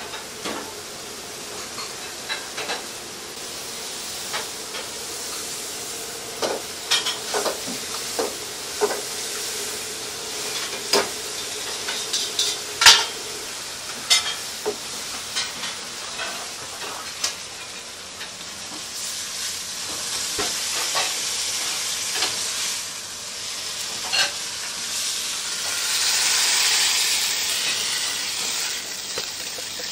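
Mapo tofu frying in a wok: a steady sizzle, with the metal ladle clanking and scraping against the wok many times. The sizzle grows louder near the end.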